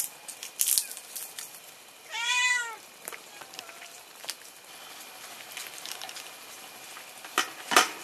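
A cat meows once, about two seconds in: a short call that rises and then falls in pitch. Around it are a few sharp clicks and taps of chopsticks against a metal pot, and the loudest comes near the end.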